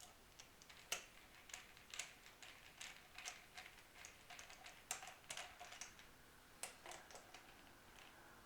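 Faint, irregular clicks and ticks of small metal screws and a screwdriver being handled and set into a guitar's vibrato mounting plate, some with a brief metallic ring.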